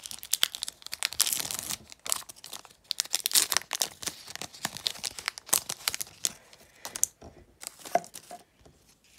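Plastic wrapper of an O-Pee-Chee hockey card pack being torn open and crinkled by hand: a dense run of crackling rips that thins out about seven seconds in.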